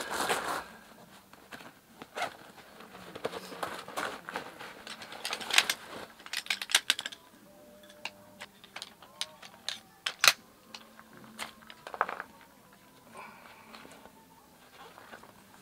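A folding camp chair being put together by hand: its metal poles click and knock irregularly, with the canvas seat rustling as it is fitted onto the frame.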